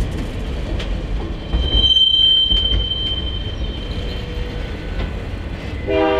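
Union Pacific passenger train rolling by: a steady low rumble of wheels on rail, with a high, steady wheel squeal for about a second and a half in the middle. Right at the end a multi-note train horn starts to sound.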